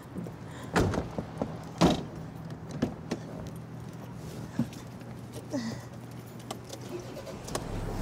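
Car doors being handled and shut: a series of sharp knocks and clicks, the loudest about two seconds in, over a low steady hum.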